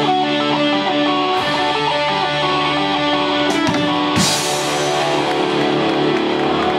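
Live punk rock band playing: electric guitars holding sustained chords over a drum kit, with cymbal crashes about a second and a half in and twice around three and a half to four seconds in.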